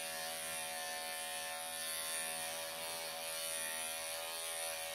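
Electric pet clippers buzzing steadily as they clip through a Persian cat's long coat.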